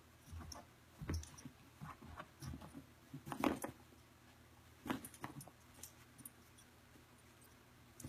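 Great Weimar puppy (Great Dane–Weimaraner cross) pouncing and scrabbling on carpet: scattered soft thumps and scuffs, the loudest about three and a half seconds in, growing sparse in the second half.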